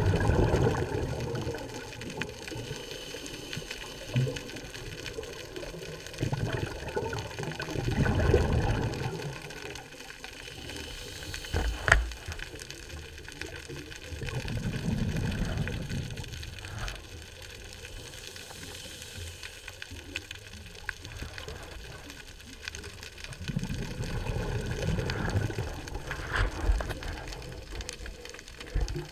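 Scuba diver's exhaled breath bubbling out of the regulator, heard underwater as a low bubbling rumble that swells about four times, once every seven to nine seconds, over a steady underwater hiss. A single sharp knock sounds near the middle.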